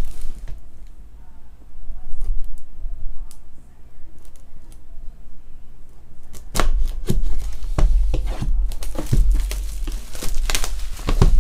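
Cellophane shrink-wrap on a trading-card box being slit with a folding knife and then torn and crinkled off. It is quiet at first with a few faint clicks, then turns to a dense run of sharp crackling from a little past the middle.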